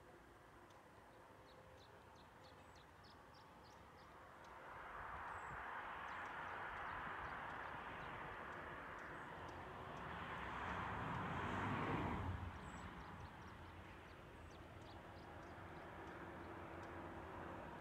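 A vehicle passing: a rushing noise swells from about four seconds in, peaks with a low rumble near twelve seconds, then falls away quickly.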